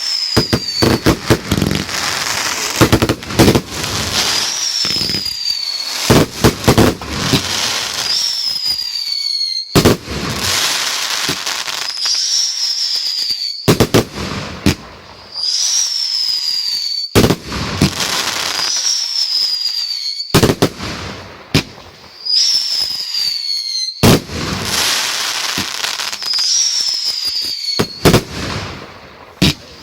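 Fireworks going off in a display: repeated bangs and crackling, with a high whistle falling in pitch about every three and a half seconds.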